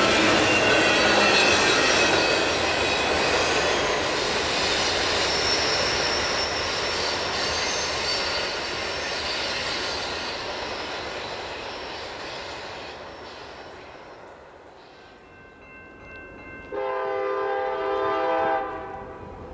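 Freight train rolling past with steel wheels squealing on the rails, the rushing noise fading away over the first dozen seconds. Near the end a locomotive air horn sounds once for about two seconds and cuts off suddenly.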